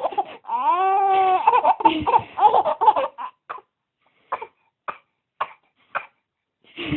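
Baby laughing at a mock sneeze: first one long, high, drawn-out laugh that rises and falls in pitch, then choppy bursts of laughter, then four short laughing breaths about half a second apart that fade out.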